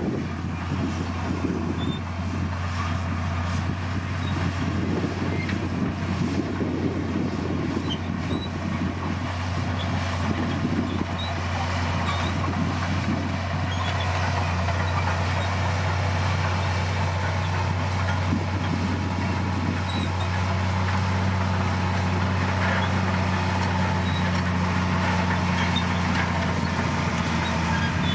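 Diesel engine of a Komatsu D60P bulldozer running steadily under work with a low, continuous drone; a second, higher steady hum joins about two-thirds of the way through.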